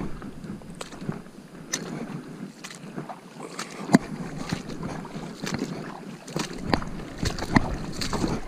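Boots wading through shallow river water over a gravel bed: irregular splashing steps, one sharper splash about four seconds in.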